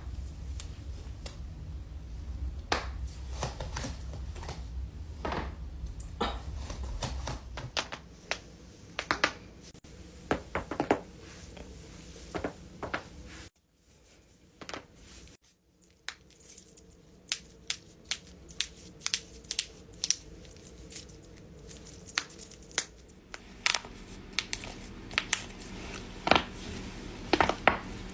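Human joints cracking and popping: many short, sharp pops, some in quick clusters, with a brief silent gap about halfway through.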